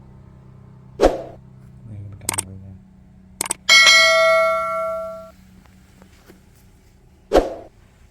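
A metal object struck once, ringing like a bell and fading over about a second and a half, with two dull knocks and a few sharp clicks around it.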